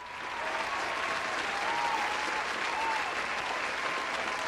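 Audience applause, a dense steady clapping that swells in at the start, with a few faint voices wavering above it.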